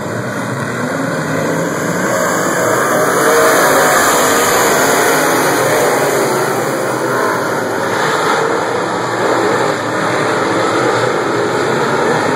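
A pack of dirt-track modified race cars' V8 engines revving together at the green-flag start of a heat race, loud and wavering up and down in pitch, growing a little louder after about two seconds.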